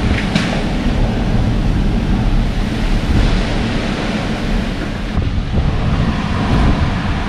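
Hurricane-force wind of a Mediterranean hurricane (medicane) gusting steadily, buffeting the microphone with a heavy low rumble.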